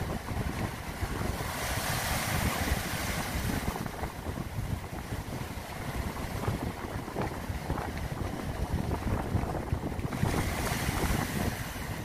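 Sea waves breaking on rocks and washing over a pebble shore, with wind buffeting the microphone. The surf hiss swells up twice, about two seconds in and again near the end.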